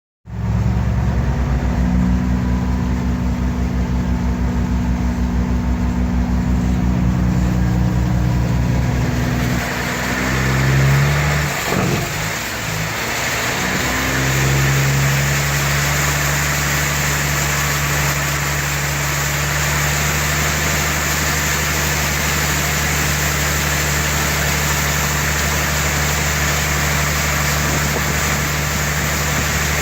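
An engine running steadily. Around ten seconds in its note shifts and wavers for a few seconds, then settles again, while a steady hiss joins it.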